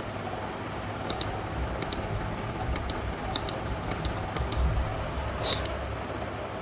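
Computer mouse buttons clicking: six quick double clicks spaced half a second to a second apart, then a brief rustle, over a steady low hum and hiss.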